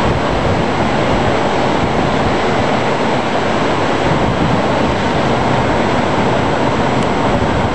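Wind blowing on the microphone as a loud, steady rush, mixed with ocean surf breaking on the shore.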